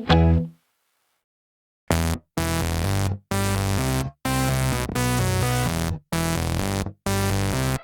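Background electronic music: after about a second and a half of silence, pulsing synthesizer chords with a heavy bass come in, cut into short blocks by brief stops.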